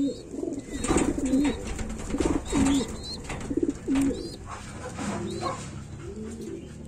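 Domestic pigeons cooing again and again, with faint high chirps and a few brief rustles and taps from a squab being handled while a leg band is fitted.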